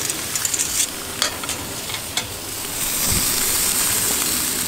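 Pork ribs sizzling on a barbecue grill: a steady hiss, with a few sharp clicks in the first two seconds and a brief low thump about three seconds in.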